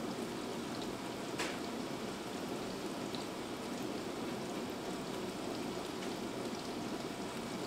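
Dishwasher running a wash cycle: a steady rush of water spraying inside the tub, with a faint click about one and a half seconds in.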